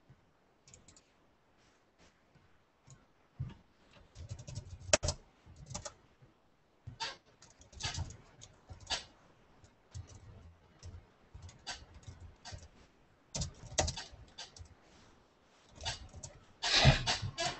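Computer keyboard typing and clicks in irregular bursts, loudest near the end.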